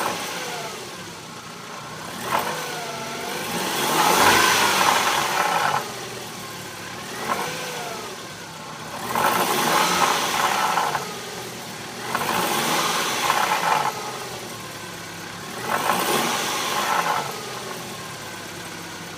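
BMW E46 318i four-cylinder engine revved up and down repeatedly, with four loud spells of rattling noise as the revs rise. It settles back to idle near the end.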